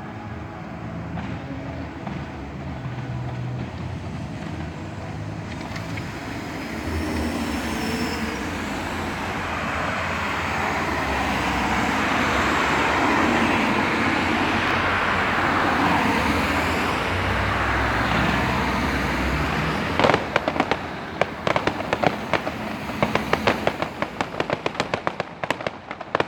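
Fireworks: a rushing noise that swells over several seconds, with a brief whistle, then from about twenty seconds in a fast run of sharp bangs and crackles.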